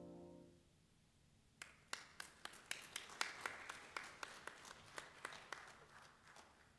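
The last chord of a saxophone and piano piece dies away, then a small congregation applauds with separate, scattered claps from about a second and a half in, thinning out near the end.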